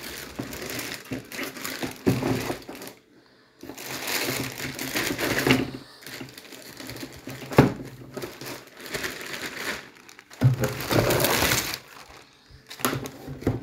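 Clear plastic bag crinkling and rustling as a car window regulator is handled in its wrapping in a cardboard box. It comes in several bouts with short pauses, with a couple of sharp knocks.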